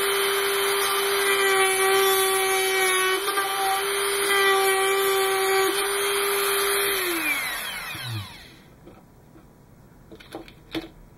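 Dremel rotary tool with a small cutting wheel running at a steady high speed, cutting into the plastic of a model kit's engine bell; about seven seconds in it is switched off and its whine falls in pitch as it winds down. A few light clicks near the end.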